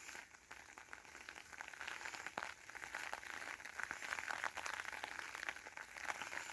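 Rain falling on an umbrella held overhead: a faint, dense crackle of small drop ticks that grows a little louder after about two seconds.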